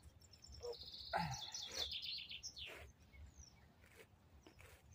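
A songbird singing one short song about a second in: a fast run of high repeated notes that steps down in pitch, ending in a downward-sliding whistle.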